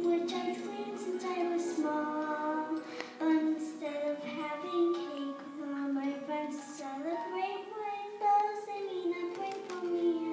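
A young girl singing into a microphone in long held notes, with a woman's singing voice also heard.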